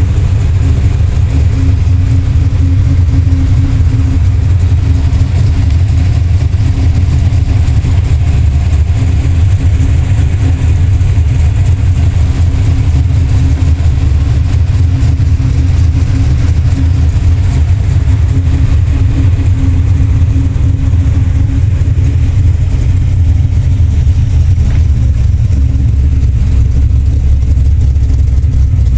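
1971 Plymouth Cuda's V8 engine idling steadily with a deep rumble, warming up after a cold start from sitting for a week.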